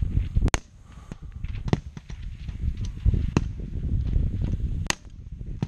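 Rifle shots from the firing line at uneven intervals: several sharp reports, two of them louder than the rest. Wind rumbles on the microphone beneath them.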